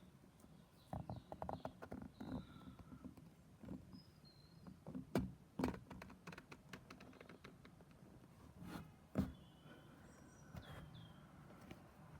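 Birds chirping in short, faint high calls and a few brief falling whistles, with scattered irregular knocks and taps that are louder than the birds.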